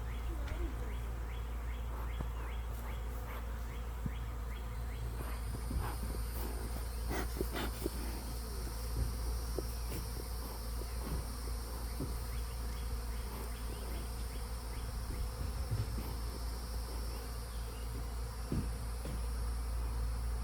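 Honeybees buzzing steadily in numbers around an open hive. The bees are agitated and active, which the beekeeper puts down to the colony being queenless and in defense mode. A thin high whine joins about five seconds in.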